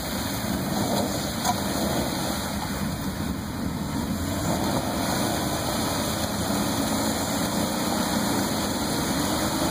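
Jeep Wrangler's V6 engine running under throttle while the Jeep is stuck in a deep mud hole, its tires churning mud and water as the driver tries to back out; the engine note rises a little in the second half.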